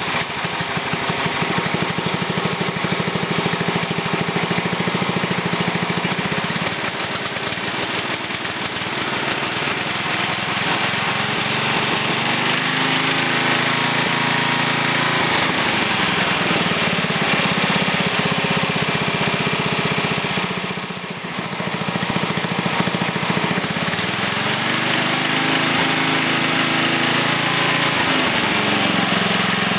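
Briggs & Stratton 11 hp single-cylinder flathead engine running steadily. Its speed rises and settles back twice, each time over a few seconds, with a brief drop in level about two-thirds of the way through.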